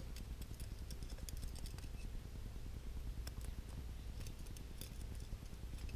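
Faint scattered metallic clicks and scrapes of a small hand tool working on the steel parts of a Ruger Vaquero revolver during reassembly, over a low steady hum.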